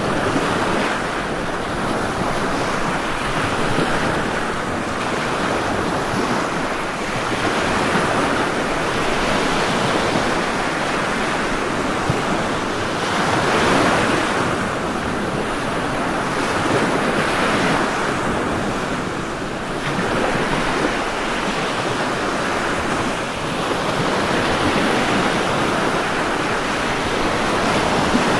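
Ocean surf: waves breaking and washing continuously, the rushing noise swelling and easing every few seconds.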